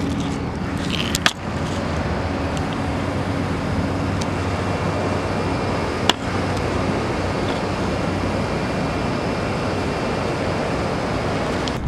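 Steady wash of city traffic noise rising from the highway far below, with a faint low hum underneath. Two brief sharp clicks, about a second in and again about six seconds in.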